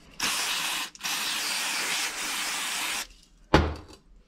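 Aerosol cleaner spray can hissing in two bursts, a short one and then a longer one of about two seconds, cleaning a small throttle-linkage part held in the hand. A single sharp knock follows about half a second after the spraying stops.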